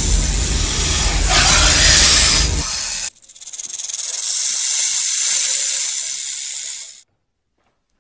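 Cobra hissing: a loud hiss over a low rumble for about three seconds, then a second long hiss that swells up and cuts off suddenly about seven seconds in.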